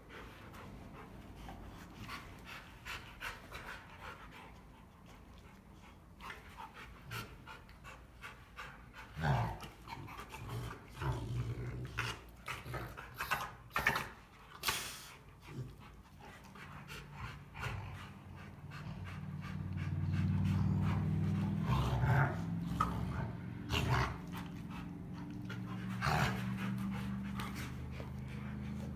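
Two Rottweilers play-fighting: heavy panting with scuffling and sharp clicks and knocks from paws, claws and jaws. From about halfway through, a low, drawn-out play growl joins in.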